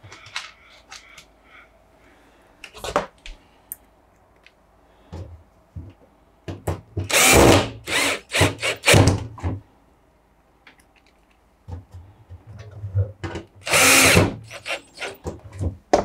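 Cordless drill-driver running in short bursts, driving the screws that fasten the door lock switch into the door opening of a Samsung front-loading washing machine. The bursts come about halfway through and again near the end, with a few light clicks before them.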